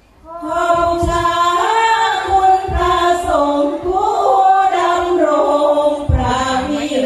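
A group of women singing sorapanya, the Thai-Isan Buddhist devotional chant-song, in a slow melody of held and gliding notes that begins just after the start.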